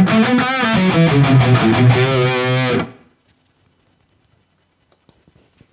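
High-gain distorted electric guitar played through a digital amp-modeling unit: a riff with low, heavy notes and some higher melodic notes. It stops abruptly about three seconds in, leaving only a few faint ticks.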